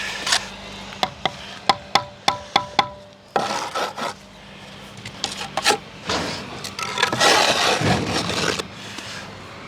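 Bricklaying sounds: a run of about eight quick, sharp taps of a steel trowel on concrete block, each ringing briefly, then rough scraping of mortar off the block with the trowel.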